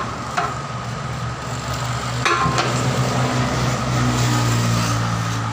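Steel tyre levers clanking against a tractor wheel's steel rim as the tyre bead is levered over it, with one sharp ringing clank about two seconds in. Behind it a motor engine hums steadily and grows louder in the second half.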